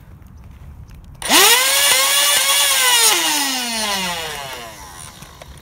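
Electric motors of a flywheel Nerf blaster spinning up suddenly to a high whine, held for about a second and a half, then winding down in a falling whine as the trigger is released.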